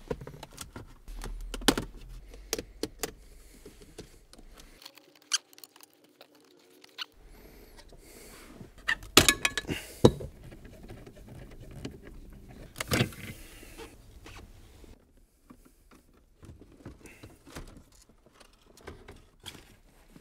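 Irregular clicks, taps and knocks of plastic interior trim and a screwdriver as a BMW E38 centre console and dash trim are prised apart by hand, with the loudest cluster of knocks a little after the middle.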